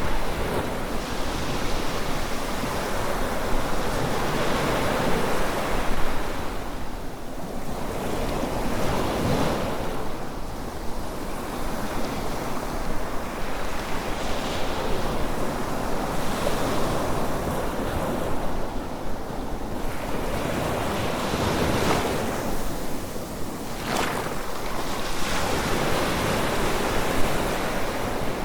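Sea waves breaking and washing up on a beach, the surf swelling and falling away every few seconds, with some wind.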